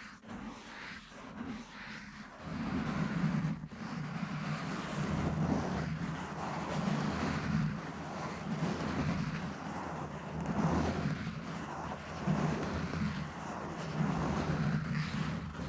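Scratching and rubbing directly on a microphone: a continuous rumbling, rustling noise that swells and fades every second or two, getting louder about two and a half seconds in.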